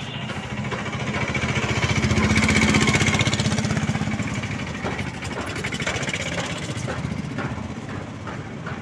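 A three-wheeler's small engine running with a fast, even putter as it passes close. It grows louder to a peak about three seconds in, then fades, swelling again briefly later.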